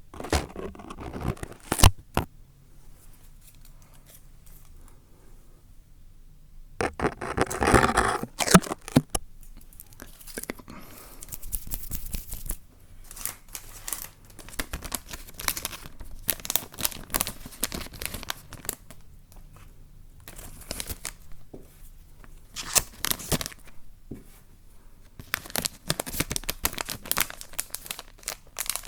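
Close-miked rustling, crinkling and scratching noises made by hands handling a material, in irregular bursts with a few sharp clicks.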